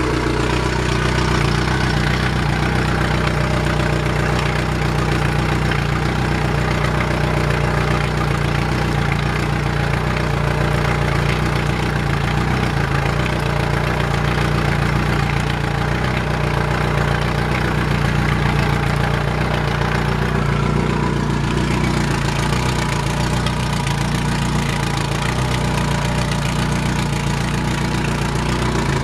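Yamaha 115 hp outboard motor idling steadily.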